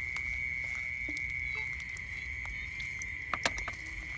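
A steady high-pitched insect trill, with faint rustling in the grass and a couple of sharp clicks about three and a half seconds in.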